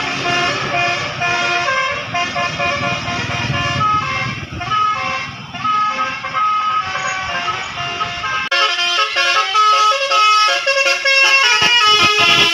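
Bus 'telolet' Basuri air horn playing a melody of stepped, held notes, with a low engine rumble under it. About eight and a half seconds in, the rumble drops away and the horn notes carry on, quicker and higher.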